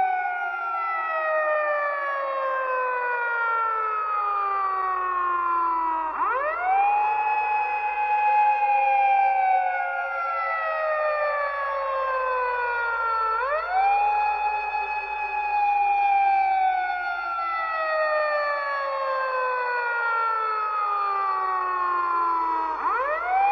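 Siren with several tones together, each rising quickly and then gliding slowly down over several seconds. It winds up again three times: about a quarter of the way in, just past halfway, and near the end.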